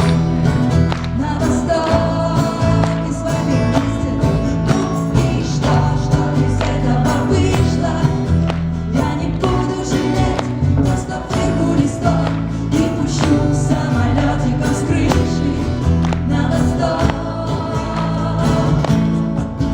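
Live pop band playing a song with singing, heavy bass and a steady drum beat.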